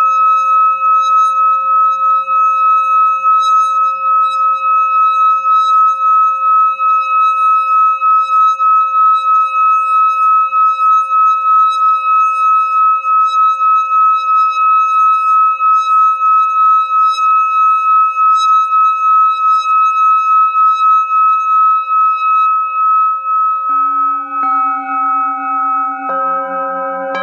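Singing bowl rubbed around its rim with a wooden mallet, singing one steady, wavering tone with high overtones. Near the end, other singing bowls are struck three times and ring on, lower and higher notes layering.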